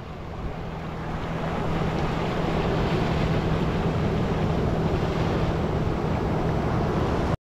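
Ocean waves breaking and washing over rock ledges in a steady surf wash, with wind rumbling on the microphone. It swells up over the first couple of seconds and cuts off abruptly just before the end.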